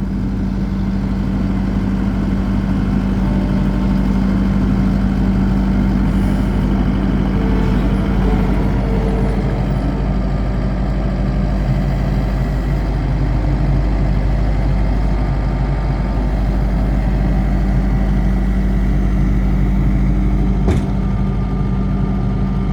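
Skid steer loader's engine running steadily under work, with one sharp knock near the end.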